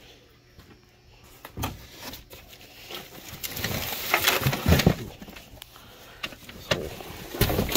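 Plastic wrap crinkling and goods being rummaged in a cardboard box, with scattered knocks and clicks; the rustling is loudest from about three to five seconds in.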